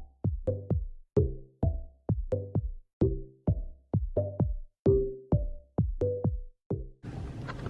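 Intro music: a steady beat of struck, pitched notes at about four a second, cutting off suddenly near the end.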